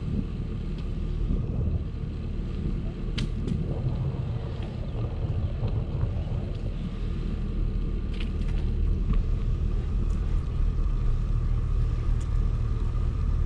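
Steady low rumble of riding a bicycle: tyre and wind noise on the microphone. A few short sharp clicks come through it.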